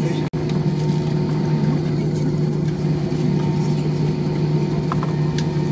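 Steady, droning cabin noise inside an Airbus A320 on the ground after landing, with a constant low hum. The sound cuts out for an instant about a third of a second in.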